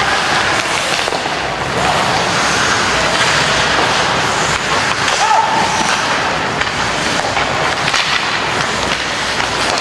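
Ice hockey game sound: a steady wash of rink noise peppered with many quick clacks and clatters of sticks, skates and puck, with voices in the background.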